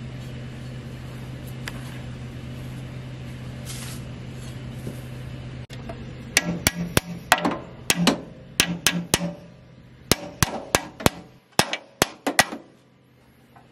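A steady low hum, then, from about six seconds in, a string of sharp metal clicks and knocks: the freshly painted battery tray being fitted onto its mounting bracket and post on a Ford 3000 tractor.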